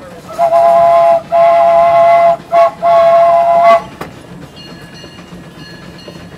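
Steam locomotive's chime whistle, heard from the cab, sounding a chord in two long blasts, a short one and a long one, the standard grade-crossing signal. After the whistle stops, about four seconds in, only the locomotive's much quieter running noise remains.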